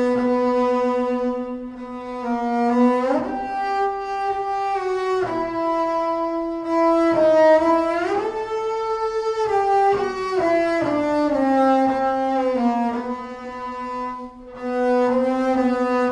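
Solo double bass played with the bow, a slow melody of long held notes high on the instrument, sliding up and down between them.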